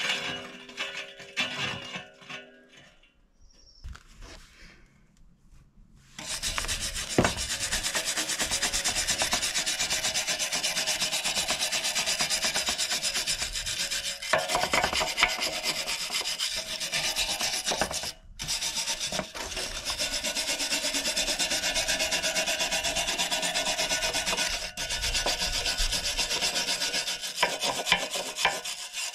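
A few metal clinks, then from about six seconds in a long, steady abrasive scraping as the rusty steel cover of an antique reel mower is sanded down to bare metal for repainting, with a few brief pauses.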